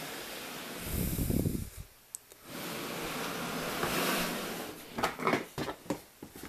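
Plastic snake tubs being handled in a wooden rack: a low scraping slide about a second in and rustling handling noise, then a run of sharp clicks and knocks around five seconds in.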